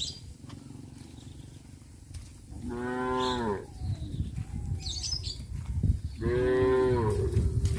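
Cows mooing: two long moos about three seconds apart, each sliding down in pitch at the end.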